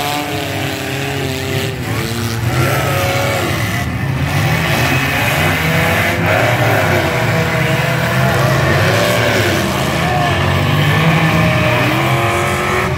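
Several demolition derby cars' engines running and revving on a dirt arena, with spectators' voices over them.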